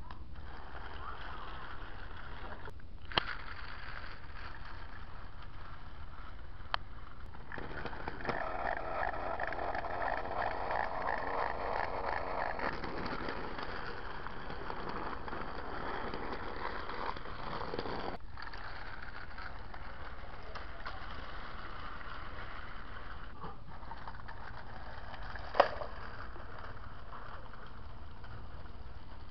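Trackmaster Hurricane battery-powered toy train running along plastic track: a steady motor whir with the rattle of wheels and cars. It grows louder for about ten seconds in the middle, and a few sharp clicks are heard along the way.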